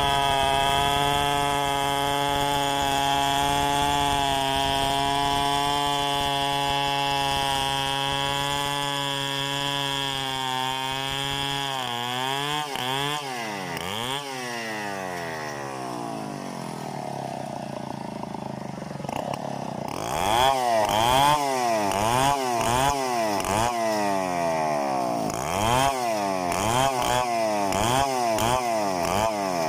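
Large two-stroke chainsaw running at a steady high speed for about twelve seconds, then revved up and down over and over, about once a second near the end.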